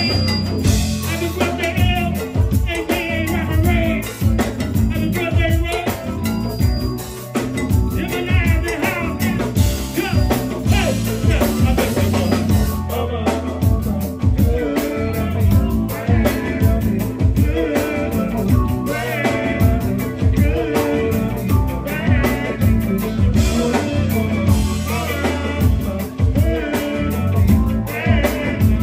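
Live go-go band playing a steady drum-kit groove with bass, keyboards and guitar, a vocalist singing and chanting over it through the PA.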